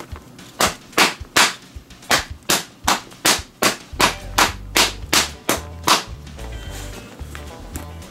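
Leather baseball gloves slapped together, about fourteen sharp smacks at a steady two or three a second, pounding the pocket to spread freshly added glove grease into the leather and shape it. The smacking stops about six seconds in; background music comes in about four seconds in and carries on.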